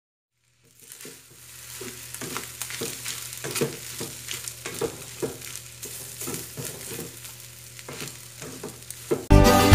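Rice stir-frying in a metal pan: a steady sizzle with repeated scraping strokes of a plastic spatula against the pan, a few a second, starting about a second in. Loud music cuts in just before the end.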